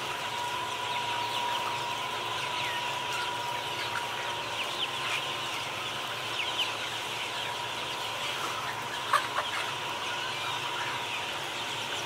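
A dense flock of white chickens clucking and chirping all at once in a steady din of many overlapping short calls, with a faint steady tone under it.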